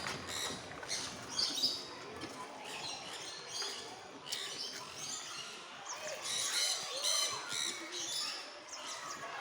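Many birds chirping, with short, high calls overlapping one another.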